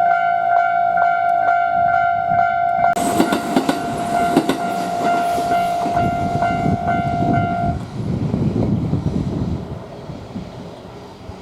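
Japanese level-crossing warning bell dinging about three times a second. About three seconds in, a train starts passing over the crossing. The bell stops near eight seconds, and the train noise fades toward the end.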